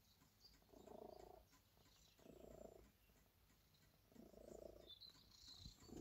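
Domestic cat purring faintly in three short bursts, one per breath, with pauses between.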